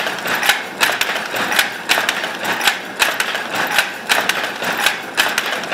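Toyoda automatic shuttle loom of the early Showa era running, a steady rhythmic clatter of sharp clacks several times a second as the shuttle is driven back and forth through the warp and the weft is beaten in.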